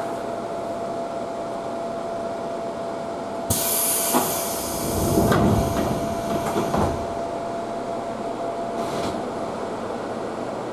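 Commuter train's air-operated doors closing: a sudden burst of compressed-air hiss about three and a half seconds in, then a few low thuds as the doors shut, over the steady hum of the stopped train.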